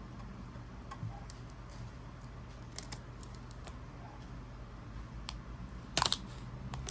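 Scattered light clicks and taps over a low steady hum, with a louder short cluster of clicks about six seconds in.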